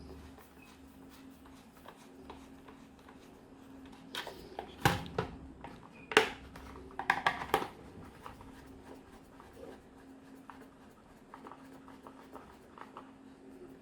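Hands handling the plastic casing and small parts of a toy bubble machine: scattered clicks and knocks, the sharpest about five and six seconds in, then a quick run of taps around seven seconds, over a faint steady hum.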